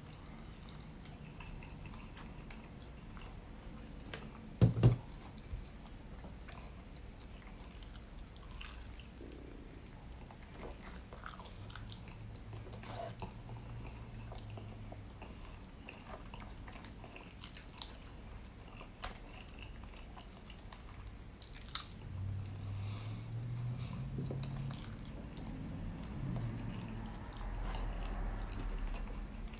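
Close-miked chewing and mouth sounds of a person eating honey-drizzled rotisserie chicken, with scattered small wet clicks and smacks. A single sharp knock about five seconds in is the loudest sound.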